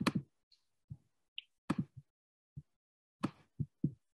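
Irregular clicking and tapping on a computer's mouse and keyboard, about ten short clicks over four seconds, while a screen share is being set up. A video call's noise suppression cuts the audio to dead silence between the clicks.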